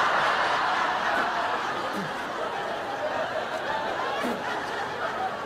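A studio audience laughing at a punchline, loud at first and slowly dying down.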